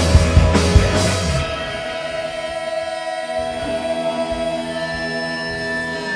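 Live rock band playing: loud drum-kit hits for about the first second and a half, then the drums drop out and held chord tones ring on more quietly.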